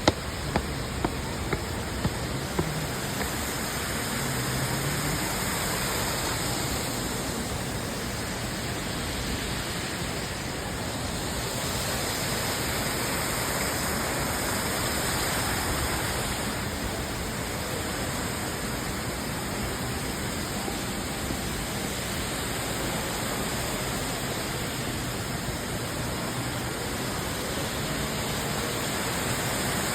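Steady rush of falling water, an even hiss that swells and eases slightly over time. A few sharp clicks sound during the first three seconds.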